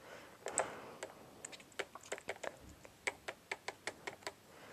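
Fingers tapping quickly on the keys of a small toy laptop, pretending to type. The taps are light and uneven, several a second.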